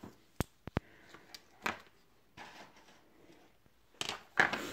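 Small handling noises: three sharp clicks about half a second in, then a few short rustles, the loudest near the end.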